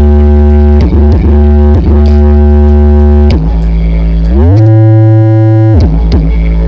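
Very loud sound-check through a truck-mounted sound system with twelve subwoofers: a deep droning bass note, briefly broken off and restarted a few times, slides up to a higher note about four and a half seconds in, holds, then drops back near the end.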